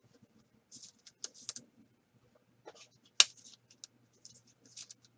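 Trading cards handled and slid through a stack: a scatter of short, light scrapes and clicks, the sharpest a little past three seconds in.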